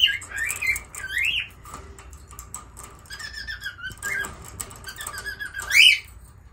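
Rosy-faced lovebird chirping and squawking. There are a few rising and falling chirps at the start, a run of quick short chirps around the middle, and one loud shrill squawk near the end. Light clicks of beak and claws on the wire cage run under the calls.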